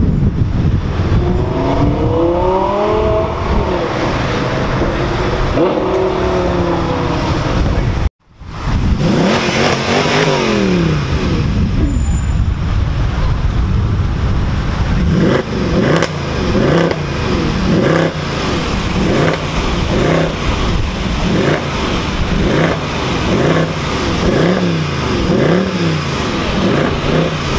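A Lamborghini's engine climbing and falling in pitch as it pulls away through the gears. After a cut, a Mercedes C-Class estate's engine is revved, one long rev and then a series of short blips about once a second.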